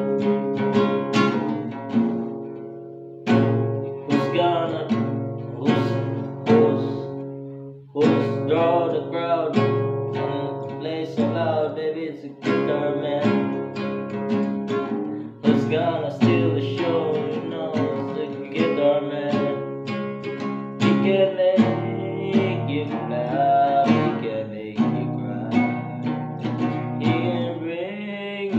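Acoustic guitar played by hand, strumming chords mixed with picked notes, with a few short breaks between phrases.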